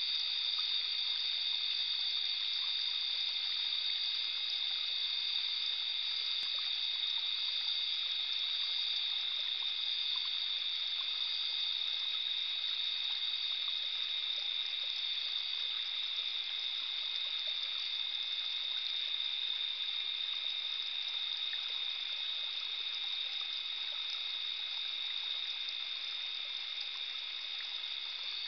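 A small forest stream trickling steadily, under a constant high-pitched chorus of steady tones.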